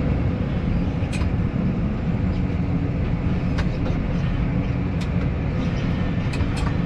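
Diesel engine of a New Holland loader tractor running steadily, heard from inside the cab, with a few sharp ticks and knocks while the loader works over a mixer wagon.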